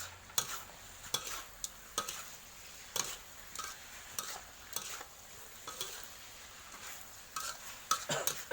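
Spatula scraping and knocking against a pan in uneven strokes as a spicy frog stir-fry sizzles steadily.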